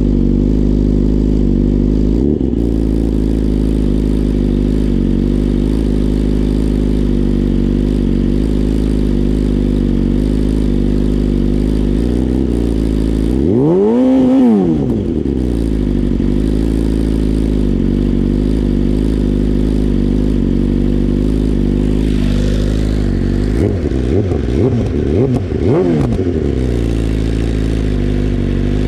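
2021 BMW S1000RR's inline-four engine idling steadily through an Akrapovic full titanium exhaust. About halfway through it is revved once, rising and falling back to idle, and near the end it is given a quick run of short throttle blips.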